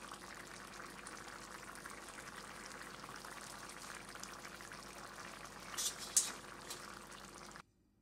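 Ghugni, a thick yellow pea curry, simmering in a cast iron pan: a steady soft bubbling and crackling, with two louder sharp pops about six seconds in. The sound cuts off suddenly just before the end.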